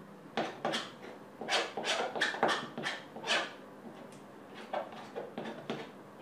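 Palette knife dabbing and scraping paint onto a canvas on an easel: a quick run of short scratchy strokes, easing off after about three and a half seconds, with a few more strokes toward the end.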